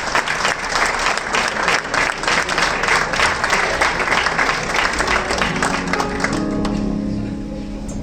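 Audience applauding; about five and a half seconds in the clapping thins out and an instrument starts playing held notes.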